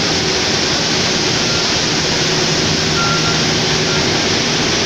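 Sugar mill machinery, the cane-crushing mill tandem, running with a loud, steady noise, a faint low hum under it and a brief high whistle about three seconds in.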